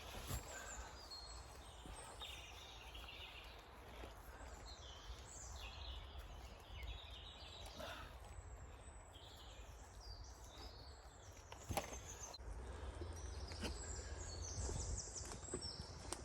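Small birds singing and chirping in woodland, many short calls overlapping, over a low steady rumble of wind, with a few faint knocks about halfway and near the end.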